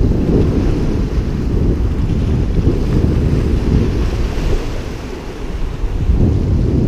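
Wind buffeting the microphone over surf washing and breaking against the rocks of a stone jetty, easing briefly about five seconds in.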